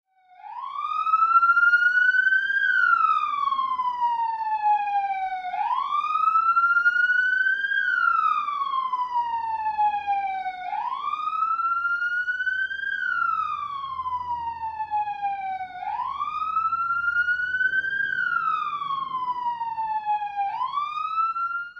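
Police siren sounding its wail. The tone rises for about two and a half seconds and falls for about three, repeating roughly every five seconds, with four full cycles and a fifth rise at the end.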